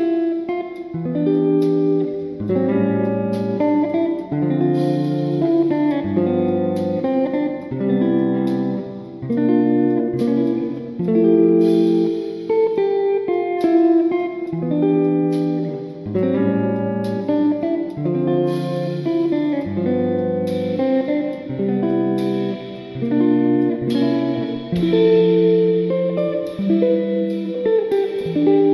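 Background instrumental music led by a plucked guitar, playing chords at a steady, even pace with a new chord about every second.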